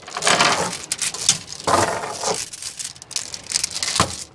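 Steel tie-down chain clinking and rattling on a wooden trailer deck as it is pulled around an orange ratchet load binder, coming in several bursts of metal links jangling together.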